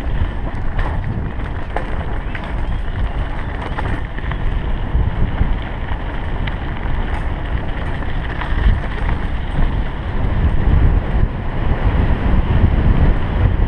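Wind buffeting a handlebar-mounted action camera's microphone while a mountain bike rolls over a gravel track. The tyres rumble over the gravel, with scattered clicks and rattles in the first few seconds. The noise grows louder about ten seconds in.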